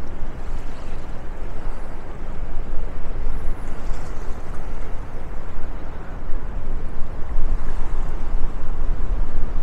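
Wind buffeting the microphone: a loud, uneven low rumble with a steady rushing hiss above it.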